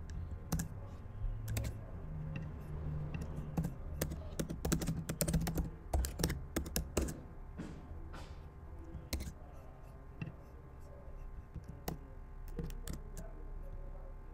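Typing on a computer keyboard: quick runs of keystrokes, densest about four to seven seconds in, then a few scattered key clicks.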